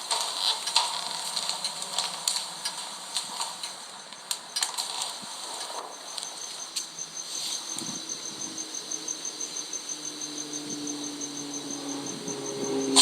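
An insect chirping in a fast, even run of high pulses, about seven a second, with scattered clicks and taps; a low steady drone comes in near the end.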